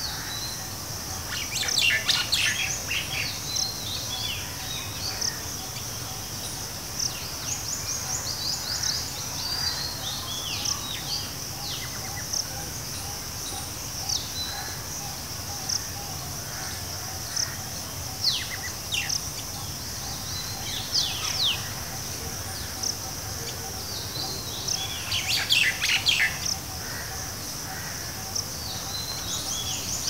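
Common tailorbird calling in clusters of short, sharp, steeply falling notes, with gaps of several seconds between the clusters. Under the calls runs a steady, high insect drone.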